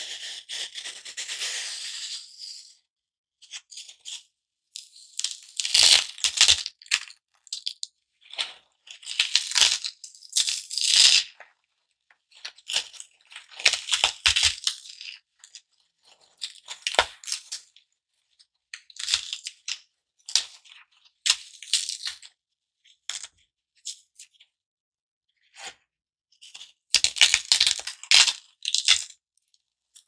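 Garden foam block being cut, giving a dry, staticky rasp in repeated strokes of one to two seconds each, separated by short pauses. A few dull knocks come within the strokes.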